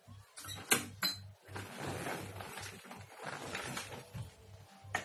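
Sharp clicks and knocks from the metal wheelchair frame, then a stretch of rustling as the body slides from the chair across the bed sheet, with another sharp click near the end.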